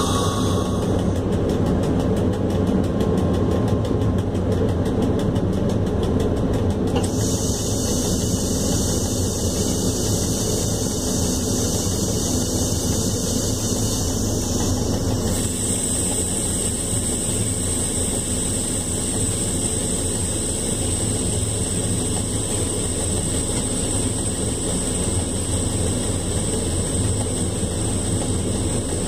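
Cab noise of a PKP ET22 electric freight locomotive running along the line: a steady rumble with a low hum. A high, steady whine joins it about halfway through.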